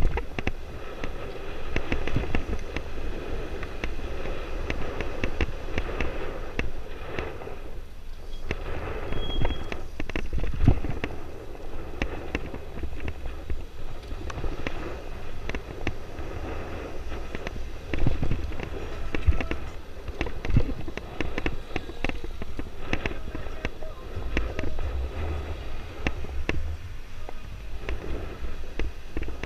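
Motorcycle riding at low speed, heard through a helmet-mounted action camera: the engine is buried under wind buffeting on the microphone, which comes through as dense crackling over a low rumble.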